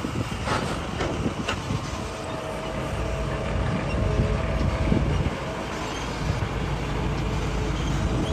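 Hitachi excavator's diesel engine running steadily, with a few sharp knocks in the first two seconds as it works rock.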